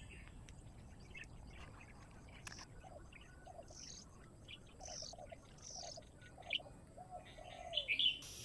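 Birds calling: scattered short, high chirps, with a run of short, lower notes in the middle and a louder cluster of chirps near the end.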